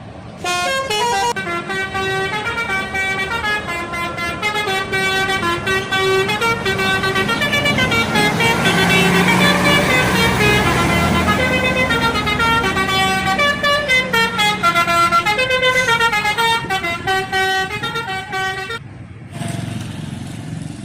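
Bus telolet horn, a multi-note air horn, playing a long tune of changing notes over the bus's engine. It grows louder toward the middle, fades, and stops a couple of seconds before the end.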